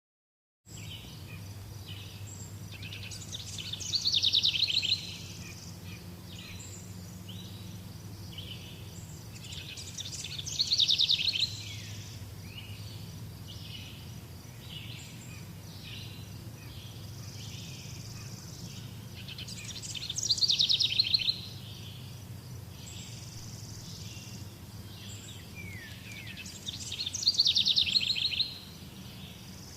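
Birdsong: one bird gives a loud, rapid trilled phrase four times, roughly every seven seconds, while other birds chirp softly throughout. A steady low hum runs underneath.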